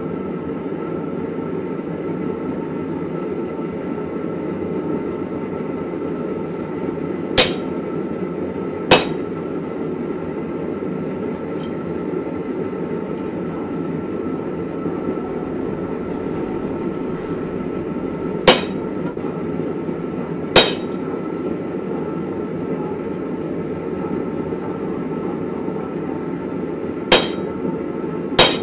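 Hammer blows on a spring butcher (spring fuller) driving into red-hot coil-spring steel on the anvil: six sharp metallic strikes with a short ring, coming in three pairs well apart. A steady low rushing noise runs underneath throughout.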